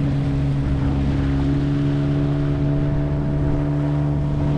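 Outboard motor driving a small boat along at steady speed: an even, unchanging drone.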